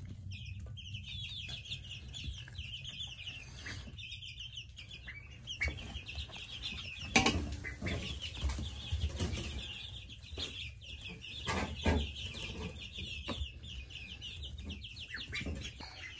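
A brood of 20-day-old chicks and ducklings peeping non-stop, a dense chorus of short high peeps, with a few sharp knocks and rustles about seven and twelve seconds in.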